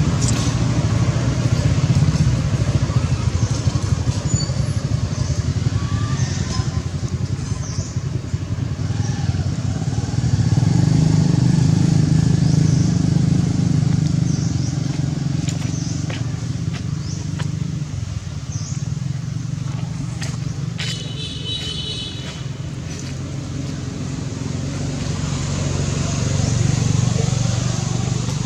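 A motor engine running steadily as a low rumble, louder for a few seconds near the middle and again near the end. A brief high-pitched squeal about two-thirds of the way through.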